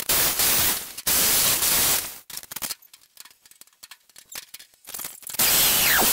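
Power tools on a sheet-steel filing cabinet: for about the first two seconds a corded handheld tool hisses loudly against the side, then come a few seconds of light clicks and handling. Near the end a cordless drill bores into a metal plate on top, its whine falling in pitch.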